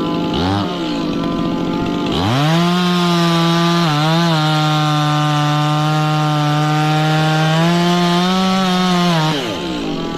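Two-stroke chainsaw revved from idle to full throttle about two seconds in and held there for roughly seven seconds while cutting wood, its pitch dipping briefly twice, then dropping back toward idle near the end.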